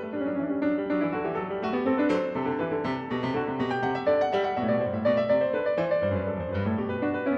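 Background piano music, a steady stream of notes.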